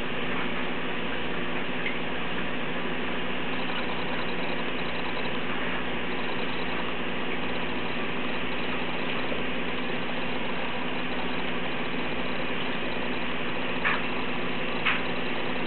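Aquarium pump running with a steady hum and water noise. Two short clicks come about a second apart near the end.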